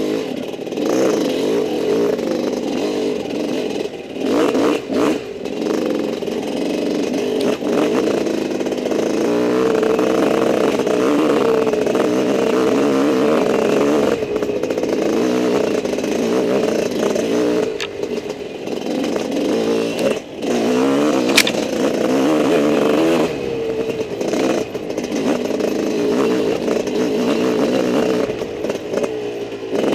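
Off-road motorcycle engine running hard, its pitch rising and falling continuously as the throttle is worked along a rough trail, easing off briefly about 4 s and 20 s in. A single sharp tick about 21 s in.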